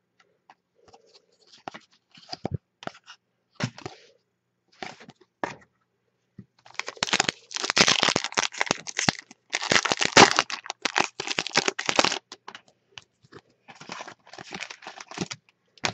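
Trading card pack wrapper being torn open and crinkled by hand, a few seconds of loud crinkling and tearing in the middle, with scattered light clicks of cards being handled before it and lighter rustling near the end.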